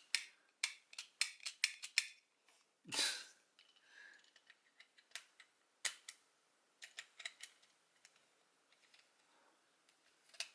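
Hard plastic toy parts clicking and snapping as the DX PowerRider key is unscrewed and its cover worked loose: a quick run of sharp clicks, a louder clack about three seconds in, then scattered lighter clicks.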